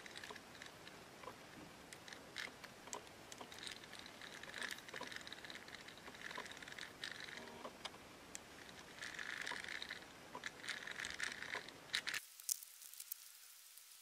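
An ABU Ambassador 4500C baitcasting reel cranked by hand, its gears running with faint scraping and clicking: a part of the fitted aftermarket drag clicker kit is rubbing inside the reel as the handle turns. The scraping stops near the end, leaving a few sharp clicks.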